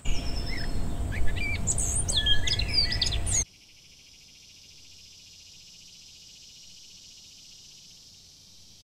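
Small birds chirping in quick rising and falling calls over a loud low rumble. About three and a half seconds in it cuts off abruptly, leaving a faint, steady high-pitched hiss that stops near the end.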